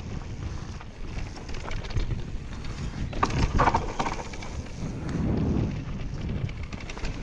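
Wind buffeting the microphone while an electric mountain bike rolls fast over a dirt trail, its tyres rumbling and the bike rattling and knocking over bumps. A brief sharper, higher noise comes a little past three seconds in.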